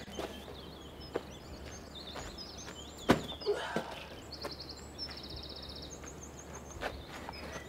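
Birds chirping and trilling, with a few knocks of stones being handled on a rubble pile; the loudest is a sharp knock about three seconds in.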